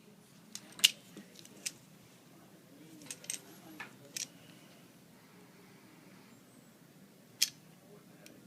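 Scattered sharp clicks and taps in a quiet small room: a loud one about a second in, a quick cluster a few seconds later, and another loud click near the end.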